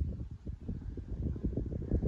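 Wind buffeting the microphone: a low, gusty rumble that swells and fades irregularly.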